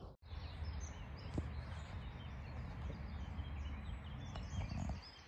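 Outdoor ambience: many small birds chirping over a steady low rumble, with a faint tap about a second and a half in.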